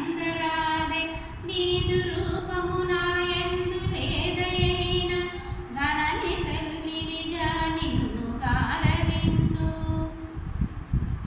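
A woman singing a Telugu verse from a textbook unaccompanied, in a slow melody of long held notes that slide between pitches.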